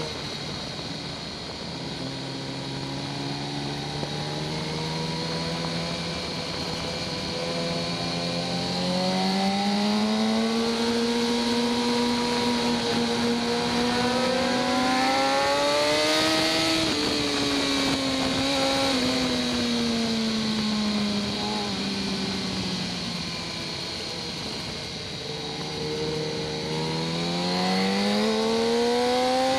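A 2014 BMW S1000RR's stock inline-four engine heard onboard at riding speed. Its note climbs slowly through the first half, falls away over the next several seconds, then climbs again near the end, over a steady hiss.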